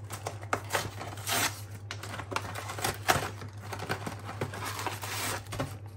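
Cardboard sleeve of a microwave ready meal being opened by hand and the plastic tray slid out: irregular scraping, rustling and small knocks of card and plastic.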